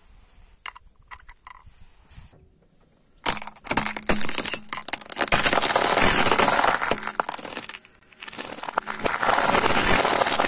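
Car tyre rolling slowly over loose gravel and snail shells: a loud, dense crunching and crackling that starts about three seconds in, drops out briefly near eight seconds, then resumes. Before it, a few faint clicks as shells are set down on the stones.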